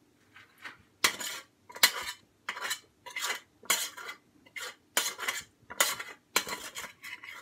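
A spoon scraping and knocking against the inside of a stainless steel pot, about two strokes a second starting about a second in, as cooked pasta is scraped out of the pot into a bowl.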